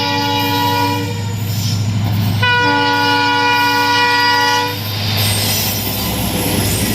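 Battery-operated toy train playing a recorded train horn: one blast ending about a second in, then a longer blast from about two and a half seconds to nearly five, over a steady low hum and rattle.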